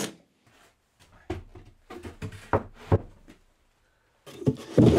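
A cordless drill-driver's whine cuts off at the very start. Then comes a run of about eight short wooden knocks and thunks, OSB drawer boxes being handled and set into their cabinet.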